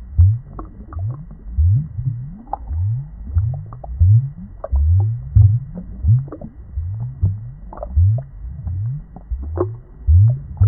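Muffled underwater bubbling or gurgling in an aquarium: a steady run of low gulps, each rising in pitch, about two a second, with faint clicks.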